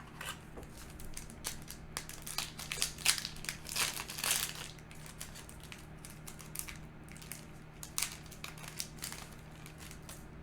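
Foil trading-card booster pack wrapper crinkling and crackling as it is handled and opened, loudest in a dense cluster of crackles about three to four seconds in, with another sharp crackle near eight seconds.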